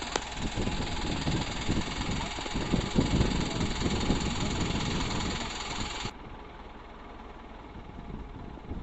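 Diesel engine of a dual-mode rail/road minibus idling during its changeover from rail to road mode, with an uneven low rumble. About six seconds in the sound drops abruptly to a quieter, duller engine hum.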